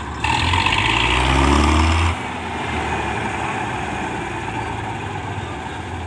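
Kartar combine harvester's diesel engine revving briefly, its pitch climbing for about two seconds, then dropping off sharply to a steady running note as the machine creeps along.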